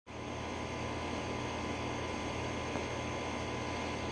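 Steady machine drone with a faint even hum, unchanging throughout.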